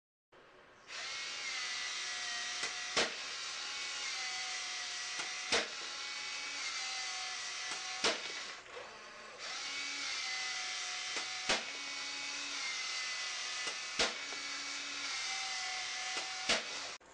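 Heng Long 3819 RC Panther tank's built-in automatic airsoft BB gun firing: a small motor whirs steadily, its pitch bending in a repeating cycle, with a sharp crack about every two and a half seconds, six shots in all, against the target board.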